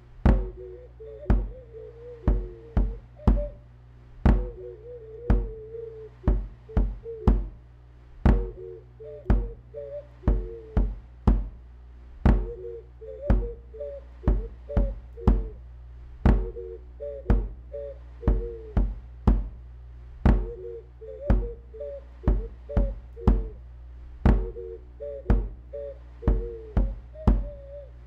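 Live electronic music: a drum-machine beat of repeated kicks over a steady low synth drone, with a wavering melody played on a small hand-held wind instrument, likely a clay ocarina.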